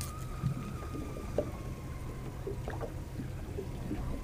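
Steady low rumble with a thin, slightly wavering whine from a boat's motor, and a few faint ticks.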